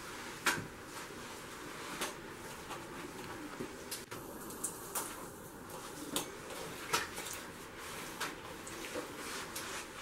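About ten irregular light clacks and knocks in a small tiled room, made by a person in slide sandals moving about on a wet ceramic tile floor while handling a string mop.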